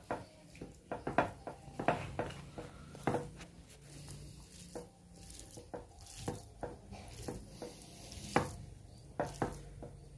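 Irregular clinks, taps and scrapes of a utensil against a plate as rice and side dishes are mixed and scooped up.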